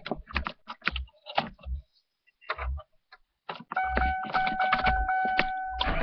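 Car keys clicking and jangling at the ignition of a 1997 Ford Crown Victoria. About four seconds in, a steady electronic tone comes on as the ignition is switched on, with low thumps under it, just before the engine starts.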